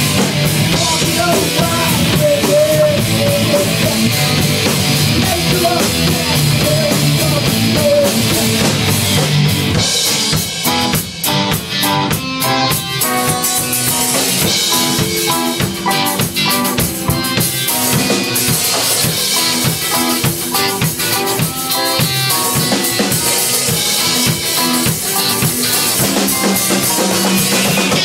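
Rock band playing live with electric guitars, bass guitar and a drum kit. About ten seconds in, the dense full-band sound thins to a choppier section in which the drum hits stand out, then builds back up.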